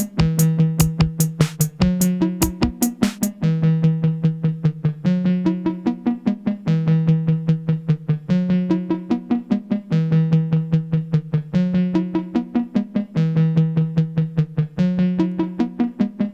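Modular synthesizer music: a Make Noise 0-Coast playing a repeating sequenced bass-and-lead pattern, with Mutable Instruments Rings adding a plucked Euclidean melody. Sharp, bright percussive clicks sound over it and drop out about three seconds in, leaving the pulsing pitched sequence.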